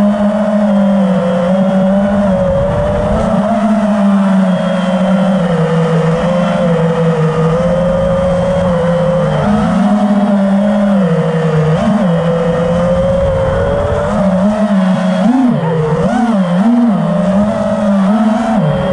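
Five-inch FPV quadcopter's four T-Motor F60 2350kv brushless motors and three-blade props running loudly with a steady whine. The pitch holds for long stretches and then dips and climbs several times in the last few seconds as the throttle is worked.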